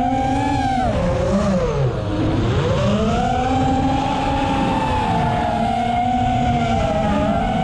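FPV quadcopter's 2205 brushless motors and 5-inch three-blade props whining in flight. The pitch drops as the throttle is cut for about two seconds, then climbs back and holds steady, with a brief dip near the end, over a low rushing noise.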